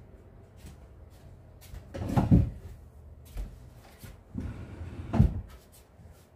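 Two dull thumps about three seconds apart, with a few lighter clicks between them, as household items are moved off a table and set down.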